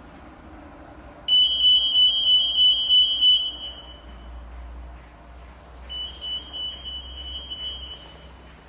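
AM anti-theft security gate of a MAXIM AMT40 EAS system sounding its alarm, the signal that a security tag has been detected between the pedestals. It gives a high beeping tone twice: a loud burst of about two and a half seconds starting about a second in, then a quieter one of about two seconds near the end.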